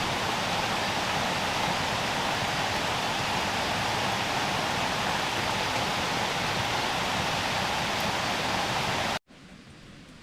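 Steady, heavy rain falling in a dense, even hiss. About nine seconds in it cuts off abruptly to a much quieter scene with a few faint drip-like ticks.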